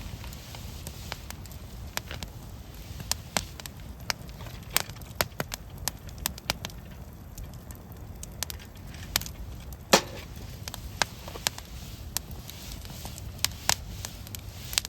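Wood campfire crackling, with irregular sharp pops, the loudest about ten seconds in, over a steady low rumble.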